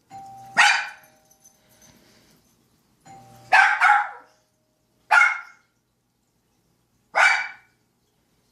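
A two-note doorbell chime sounds twice, and each time a dog barks right after it: five loud barks in all, the last two spaced a couple of seconds apart.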